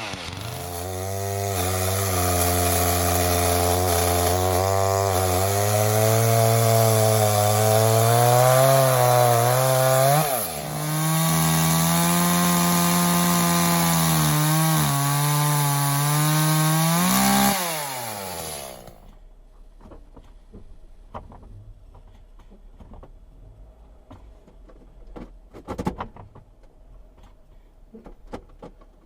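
Chainsaw running under load, cutting through fallen dead wood, its engine note sagging and climbing as the chain bites. It drops off briefly about ten seconds in, revs back up, then winds down and stops about two-thirds through, leaving a few faint knocks.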